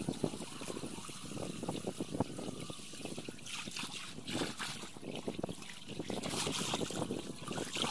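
Running water trickling and splashing, with many small irregular splashes.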